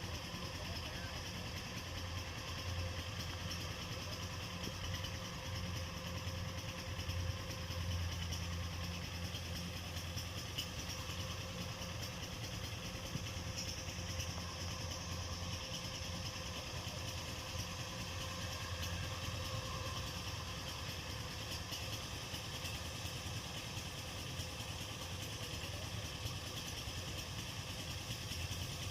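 Diesel engine of a Kubota DC105X combine harvester running steadily at idle, an even low hum. The title calls it still smooth after more than 1,600 hours, with its injection pump in good order.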